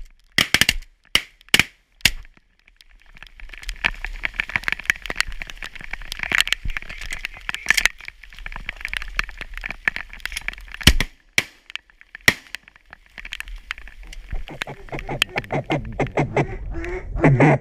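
Waterfowl calling: a fast, continuous run of quacks and honks, with a few sharp cracks in the first couple of seconds. A lower, pulsing sound takes over near the end.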